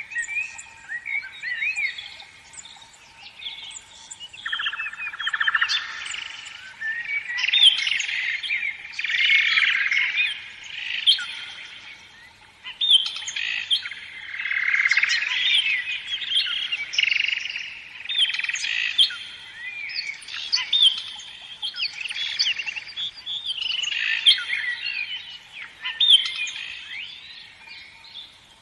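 Several songbirds chirping and singing at once in a busy chorus of quick trills and short high notes, swelling and easing every few seconds. A faint steady tone runs underneath.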